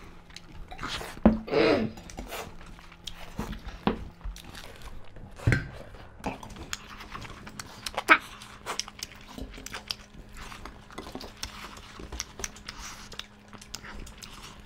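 Close-up eating sounds of people eating with their hands: chewing, mouth noises and breathing, with scattered small clicks and taps on steel plates.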